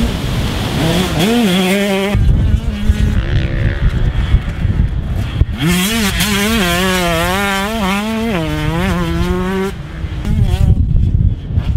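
2019 KTM 125SX single-cylinder two-stroke motocross engine revving hard as the bike is ridden, its pitch rising and falling quickly with the throttle. The revving is clearest and loudest through the middle to latter part, broken by stretches of rough low rumble with no clear engine note.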